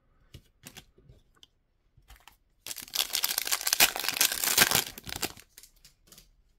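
Foil wrapper of a 2022-23 Optic basketball card pack being torn open and crinkled by hand: a dense crackling tear starting nearly three seconds in and lasting about two and a half seconds. A few light clicks of cards being handled come before and after it.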